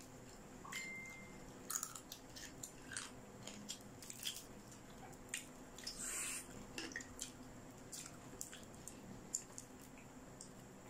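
Close-up eating sounds from crispy pata (deep-fried pork leg) eaten by hand: scattered mouth clicks and smacks of chewing, and about six seconds in a short crackly rip as meat is pulled from the bone.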